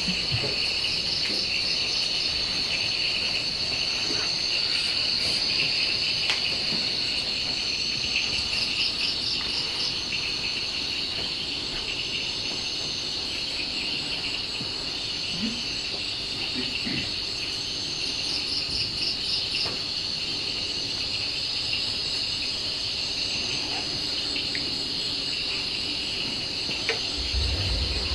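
Night insects, crickets by the sound of it, trilling steadily in a high, continuous chorus, with a faster pulsed trill coming in every several seconds. A low hum joins near the end.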